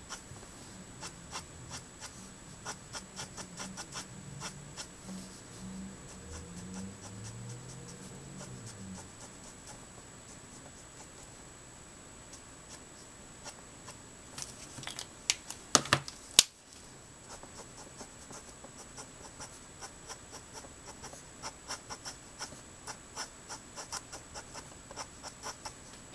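Letraset Promarker felt nib scratching on Neenah Solar White paper in quick, short colouring strokes, several a second. A few louder taps come about halfway through.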